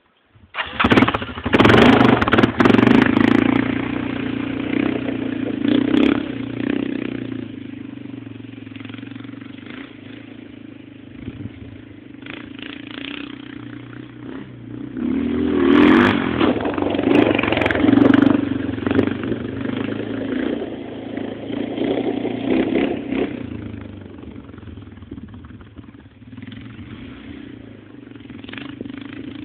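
AEON Crossland 300 ATV engine being ridden and revved in surges. It comes in suddenly about half a second in, is loudest soon after and again around the middle, and a few clattering knocks cut through it.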